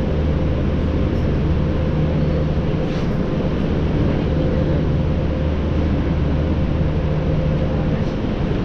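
Roosevelt Island aerial tram cabin pulling into its station, with a steady low hum from the cable and drive machinery and a thin constant whine above it.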